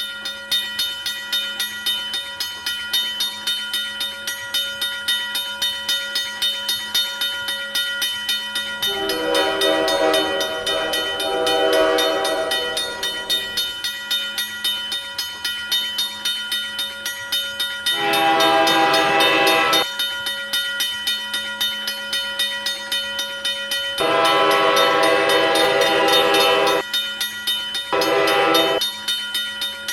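Railroad crossing bell ringing steadily at about two to three strikes a second, while a train horn sounds four blasts over it: three long ones and a short one near the end.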